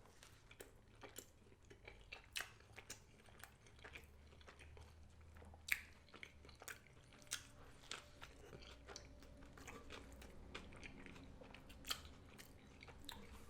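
A person chewing a mouthful of veggie burger (an Impossible Whopper), faint irregular wet clicks and smacks of the mouth with a few louder ones now and then.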